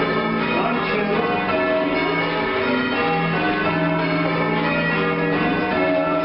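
A ring of church tower bells rung full circle from ropes in the English change-ringing style. The bells strike one after another in quick succession, their overlapping tones making a steady, continuous peal.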